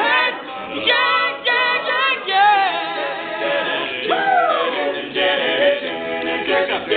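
Male a cappella group singing in harmony, several voices together, with one voice sliding down in pitch about four seconds in.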